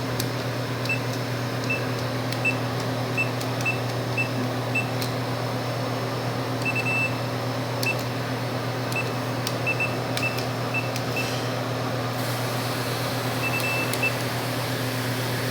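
Vending machine keypad beeping as buttons are pressed, many short high beeps in uneven runs with a couple held slightly longer, over the machine's steady low hum.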